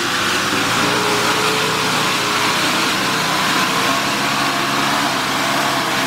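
Off-road 4x4's engine running steadily at a fairly constant pitch, pulling the vehicle slowly through deep mud.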